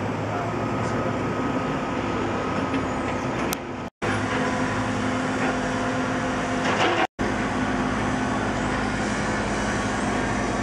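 Street traffic noise with a steady vehicle engine hum, cutting out for an instant twice.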